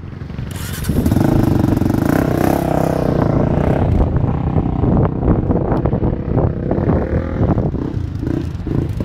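Sport ATV's single-cylinder four-stroke engine revving hard. It gets loud about a second in, then holds high with repeated rises and dips in revs.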